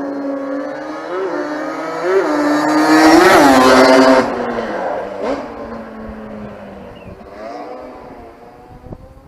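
Yamaha Banshee 350 twin-cylinder two-stroke with Paul Turner midrange expansion-chamber headers and Fatboy silencers, revved in quick blips that build to its loudest run about three to four seconds in. The revs then drop, with one more short blip, and the sound fades away near the end.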